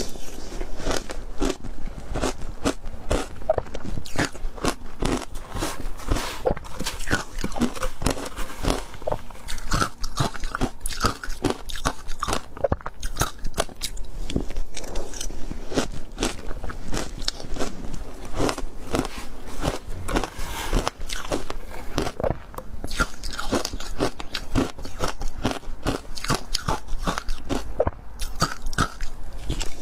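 Ice being bitten and chewed close to the microphone: a dense run of sharp, irregular crunches and cracks, several a second, without a break.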